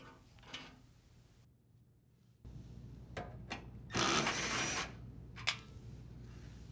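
Near silence, then a drill driver runs in one short burst of about a second, unthreading a dishwasher toe kick screw. A few light clicks from handling the driver and screw come before and after.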